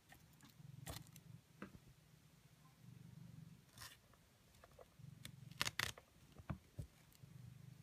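Handling noise: scattered light clicks and rustles, with a quick cluster of sharper clicks a little before six seconds in, over a soft low hum that comes and goes.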